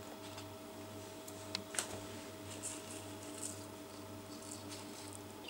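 Faint rustling of thin plastic gloves and a plastic bag, with crumbling soil and a couple of small clicks, as hands pull rooted cuttings out of potting soil. A steady low hum runs underneath.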